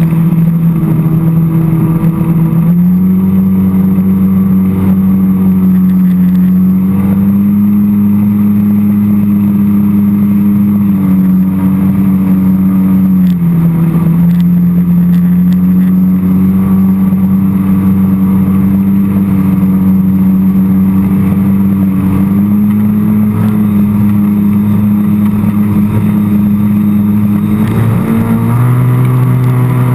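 Jet ski engine running hard at speed, its pitch stepping up and down a few times as the throttle changes, over the rush of water and wind.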